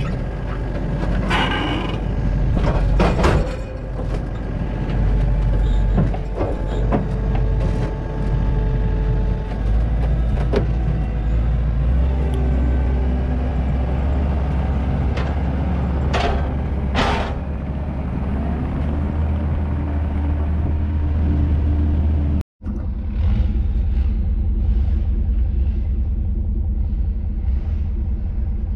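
Kubota compact track loader's engine running under load as it works its grapple, with several sharp metal clanks and a rising and falling hydraulic whine. After a sudden break about three-quarters of the way through, a steady low engine rumble.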